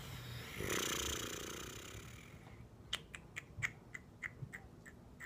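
A long breathy sigh, then a run of soft, irregular clicks, about ten over the last two seconds, from a man handling his paper notes or smacking his lips.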